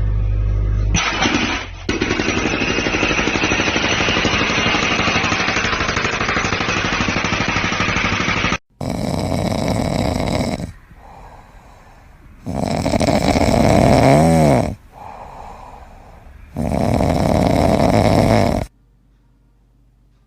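A pet animal snoring: three loud, rough breaths of about two seconds each, coming every four seconds or so in the second half. Before them a continuous rough, fast-pulsing sound runs for about seven seconds.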